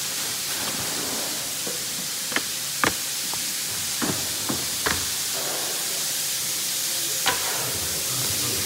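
Plastic sheeting wrapped around packed furniture panels rustling as it is handled, with a few sharp crackles over a steady hiss.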